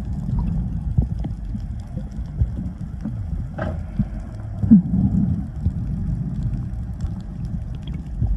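Muffled underwater rumble and churning water picked up by a phone held underwater, with scattered knocks and a short splashy burst about three and a half seconds in.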